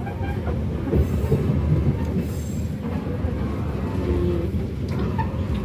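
Passenger train running along the track, heard from inside the carriage as a steady low rumble.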